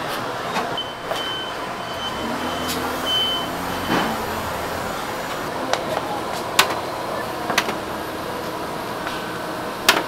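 Steady hum of a food-stall kitchen with scattered sharp clicks and taps, two close together near the end.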